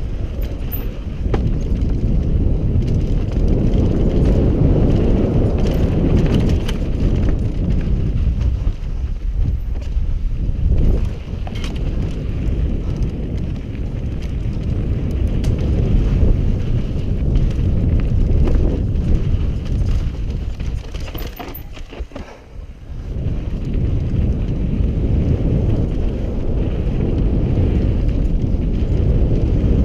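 Mountain bike descending a dry, sandy singletrack, heard from a helmet-mounted camera: a steady rush of wind and tyre noise on dirt, with scattered knocks and rattles from the bike over roots and ruts. It goes quieter for a moment about three-quarters of the way through, then picks up again.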